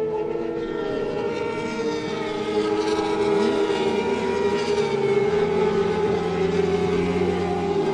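A pack of superbike engines running at racing speed, several steady engine notes overlapping, with one note rising sharply about three seconds in.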